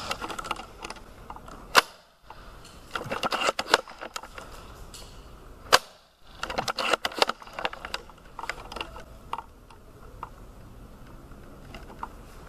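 Mechanical clicks and clacks from handling a Tokyo Marui VSR-10 spring-powered airsoft sniper rifle. There are two sharp single clacks, about two seconds and six seconds in, each followed by a burst of rapid rattling clicks, then fainter scattered clicks.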